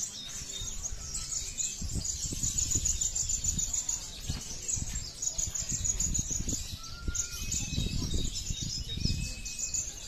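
Caged kolibri ninja sunbirds chirping in a fast, unbroken high twitter, with a few short whistled notes mixed in. A low rumble of background noise runs underneath.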